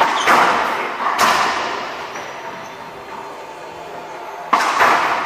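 Racquetball being played: sharp cracks of the hollow rubber ball off racquet strings and court walls, each ringing out in the court's echo. There is a quick pair of strikes at the start, another about a second in, and a second quick pair near the end.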